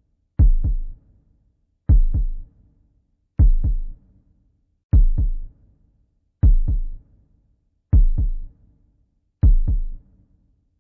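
Heartbeat sound effect: slow, deep double thumps (lub-dub), one pair about every second and a half, seven times.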